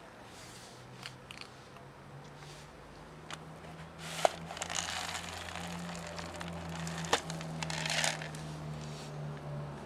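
Cat crunching dry kibble, then dry cat food rattling in a plastic tray as the tray is tipped, with a sharp click about four seconds in. Toward the end the pellets are poured out in a rattling spill onto asphalt, over a steady low hum.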